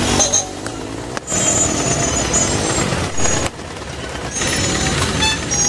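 Busy road traffic: vehicle engines running with a steady low rumble, and a few brief high tones near the end.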